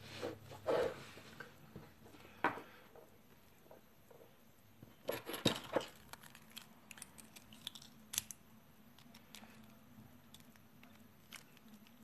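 Brass lock cylinder and aluminium follower tube being handled and taken apart by hand: scattered small metallic clicks, taps and rustles, the loudest cluster about five seconds in.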